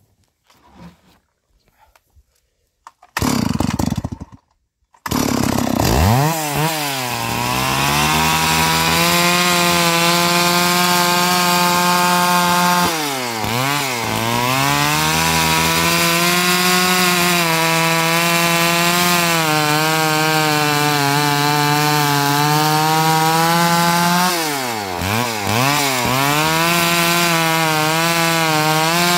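Two-stroke chainsaw at high revs ripping lengthwise through a large log to saw planks, coming in loud about five seconds in after a few faint ticks. Its pitch dips and climbs back twice as the throttle is eased and opened again.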